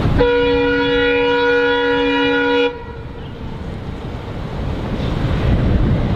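Indian Railways diesel locomotive horn sounding one long blast of several pitches at once, cutting off sharply after about two and a half seconds. It is followed by a low rumbling noise that slowly builds toward the end.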